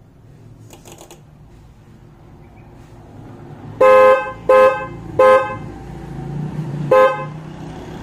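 A pair of aftermarket snail-type motorcycle horns, switched from a push button, honked four times: three short blasts in quick succession, then a shorter one near the end. The horns sound loud and not bassy.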